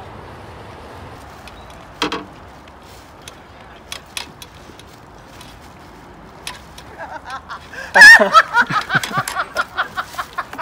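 A woman's loud laughter, starting about eight seconds in with a high cry and going on in quick, rhythmic bursts. Before it there is only faint background noise and a couple of sharp clicks.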